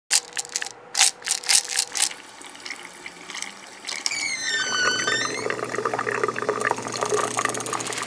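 Stones knocked together in sharp separate clicks for the first two seconds, then from about four seconds a dense rattle and scrape of small stones rolling, with a brief falling ringing tone as it starts.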